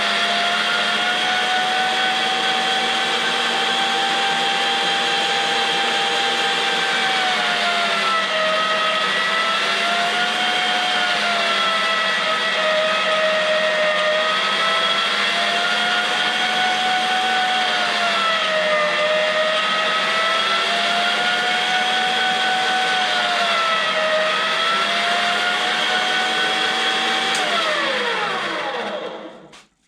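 STX Turboforce electric meat grinder running through a first grind of venison and pork. Its motor whine dips in pitch several times as the meat loads it, then glides down and stops near the end as it is switched off.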